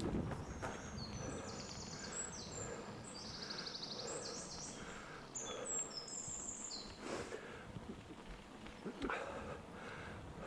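A songbird sings a long run of rapid, high trilled phrases that stops about seven seconds in, over the low rumble of a mountain bike rolling along a dirt forest trail.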